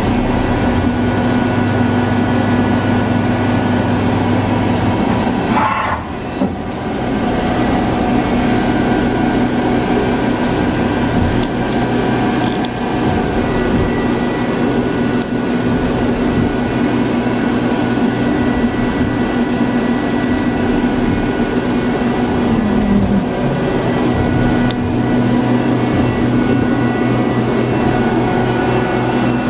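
Hurco TMX8 CNC lathe powered up and running: a steady mechanical hum with several held tones. The level dips briefly about six seconds in, and one tone slips lower near the end.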